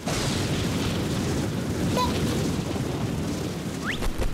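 A cartoon rushing-speed sound effect: a loud, steady, rumbling whoosh, with a short rising squeak near the end.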